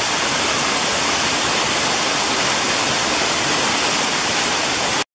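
A waterfall of about 25 feet pouring over rock ledges: a steady, dense rush of falling water. It cuts out for a moment at the very end.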